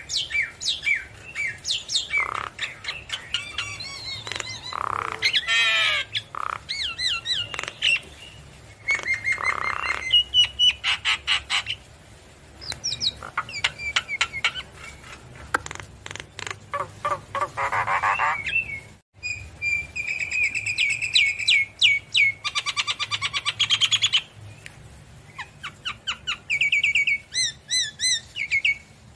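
Javan myna singing a long, varied song of clear whistles, harsh chattering phrases and fast trills, in bursts broken by short pauses.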